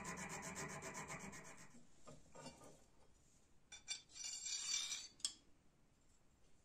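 Small steel file rasping back and forth in the slot of a steel knife end plate, about five strokes a second, stopping about two seconds in. Then light metal clicks and a short scrape as the slotted plate is slid onto the blade's tang.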